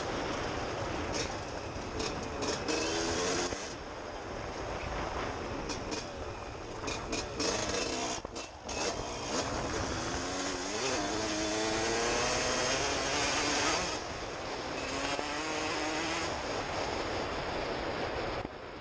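Suzuki RM125 two-stroke single-cylinder dirt bike engine revving hard under acceleration, its pitch climbing through each gear and falling at the shifts, with a brief drop off the throttle about halfway through. Wind buffets the helmet-mounted microphone underneath.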